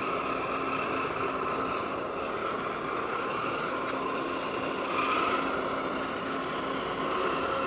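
Steady mechanical drone and whine from a large laden container ship passing close by under its own power, with a faint steady low tone. It swells slightly about five seconds in.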